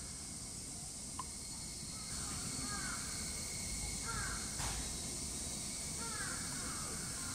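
Short falling bird calls in small clusters every second or two over a steady high hiss, with a sharp knock a little past the middle.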